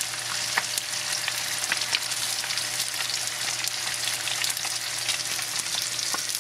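Tilapia fillets and Brussels sprouts sizzling in olive oil and butter in two frying pans on the stove: a steady hiss with frequent small pops and crackles.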